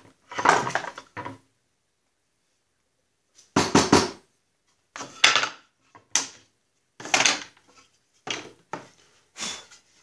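A bar clamp being released and wooden boards knocking and scraping as they are unclamped and lifted apart: about seven short, separate clunks and scrapes with quiet gaps between.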